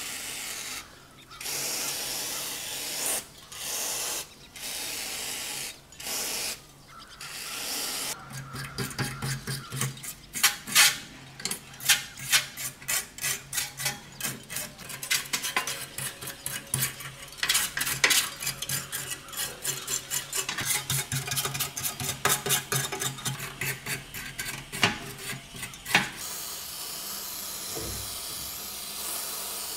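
Aerosol paint remover hissing from a straw nozzle in several short bursts onto a small model bus body, then a long run of quick scratchy strokes as tweezers and a stiff brush scrape away the softened, bubbling paint. A steady spray of remover comes again near the end.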